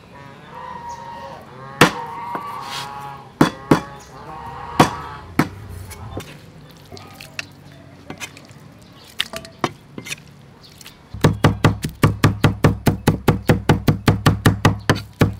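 Cleaver chopping on a wooden chopping board. First come a few separate chops through raw pork, a second or more apart. About eleven seconds in, fast, even mincing of garlic starts, about five strokes a second, louder and with a deeper thud.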